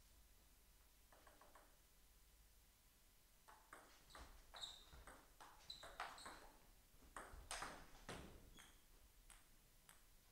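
A table tennis rally: the ball clicks and pings sharply off the rubber paddles and the table top in a quick, irregular run, faint and close together, starting a few seconds in and stopping near the end.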